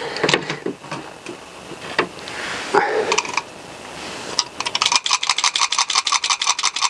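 Honda CBR1000F clutch basket scraping and clanking as it is slid off the gearbox mainshaft. Then, about four and a half seconds in, a rapid, even metallic clicking, about nine clicks a second, as the basket is turned by hand. The owner is unsure whether it is supposed to make that noise and suspects it may be behind the engine's rattle.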